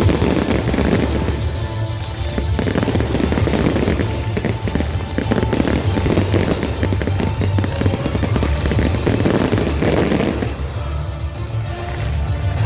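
Fireworks bursting and crackling in quick, irregular succession, with background music playing over them.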